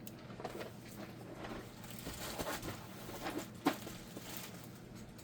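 Handling noise of Lego bags and boxes: plastic crinkling with scattered small clicks and knocks, and one sharper knock about three and a half seconds in.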